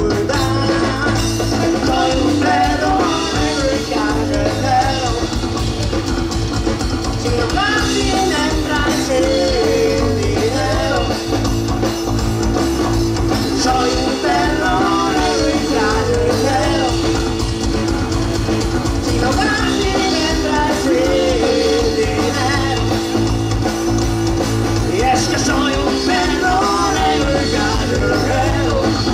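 Live rock band playing: electric guitar, electric bass and drum kit, loud and steady throughout.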